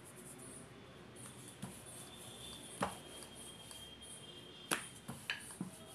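Wooden rolling pin rolling dough on a stone rolling board, with a few sharp knocks of the pin against the stone. The loudest knocks come about three seconds in and just before five seconds, followed by a few quicker, lighter ones.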